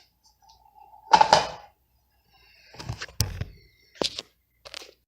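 Handling noise from hard objects: a louder bump about a second in, then a series of sharp clicks and knocks.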